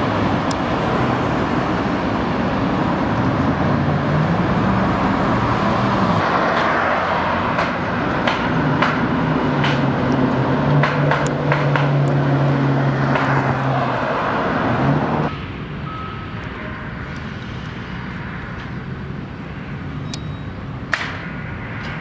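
Street traffic with a large vehicle's engine running close by, its low hum shifting in pitch, and a few sharp clicks. About two-thirds of the way through the engine noise drops off abruptly, leaving a quieter traffic hum.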